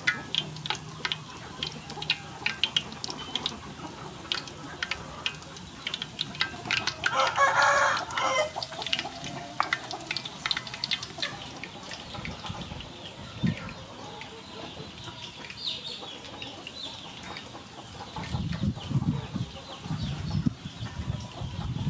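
Shrimp-topped, egg-battered bread deep-frying in hot oil, crackling and popping. A rooster crows once about seven seconds in, the loudest sound, and a few dull knocks come near the end.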